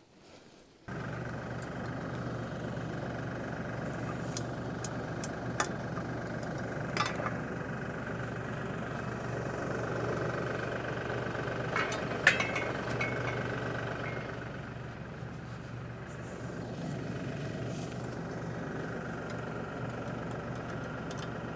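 Compact tractor's diesel engine running steadily at idle, with a few sharp metal clinks, the loudest about twelve seconds in.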